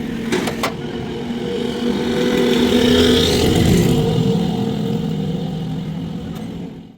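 A motor running with a steady hum, getting louder to a peak about three seconds in and then easing off, with two sharp clicks near the start.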